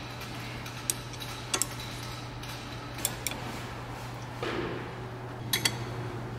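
Hand tools clicking and tapping against the metal housing and cartridge of a diesel variable-geometry (VGT) turbocharger as it is taken apart: a handful of sharp clicks, several in quick pairs, over a steady low hum.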